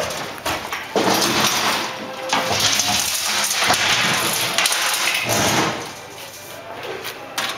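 Scrap sheet-metal panels and boxes being picked up and handled, a continuous scraping, rattling clatter that dies down about six seconds in.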